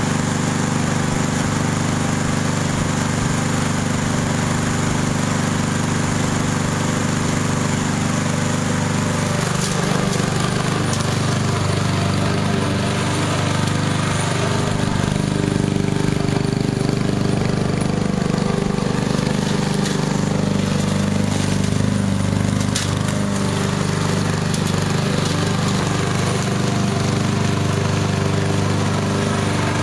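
Remote-controlled lawnmower's small gasoline push-mower engine running steadily at speed. Its pitch shifts a little about a third of the way in and again past the middle.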